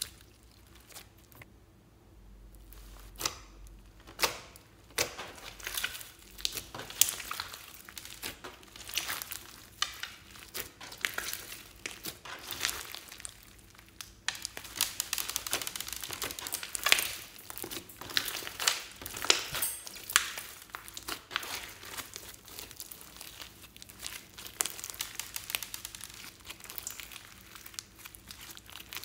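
Hands squishing, stretching and pressing slime mixed with beads, sequins and glitter: a dense, irregular run of sharp little clicks and pops, sparse for the first few seconds and then almost continuous.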